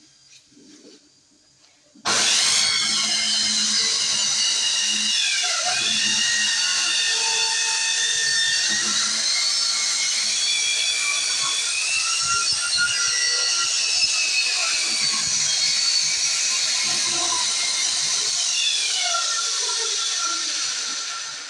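Electric circular saw starting about two seconds in and cutting along the edge of a wooden louvered panel door, its motor whine dipping in pitch twice as the blade bites into the wood, then winding down at the end.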